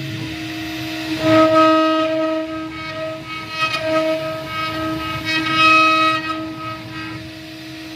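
Spindle of an AKS9015 mini stone CNC router whining steadily as it carves stone, the whine swelling louder about a second in and again near six seconds.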